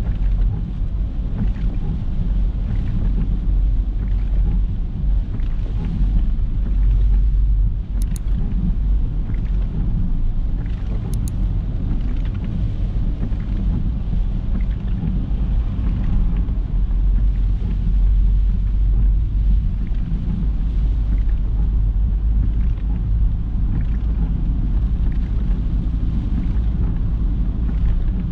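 A car driving along: steady low rumble of engine and road noise, with some wind on the microphone.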